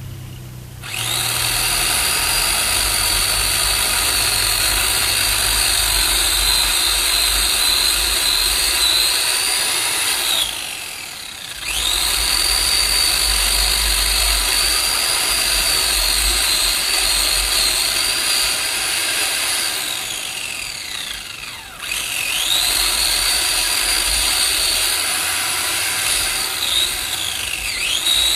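Electric chainsaw cutting wood in three long runs, its motor whine dropping in pitch each time the trigger is released, about ten seconds and twenty seconds in and near the end.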